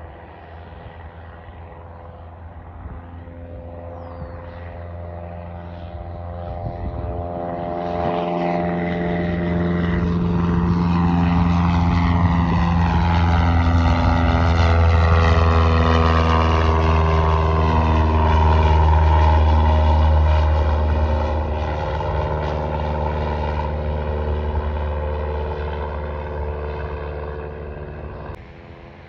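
Small single-engine, high-wing propeller plane flying low past, its piston engine and propeller buzz swelling to a loud peak. The pitch drops as it goes by, then the sound fades as it climbs away, cutting off suddenly near the end.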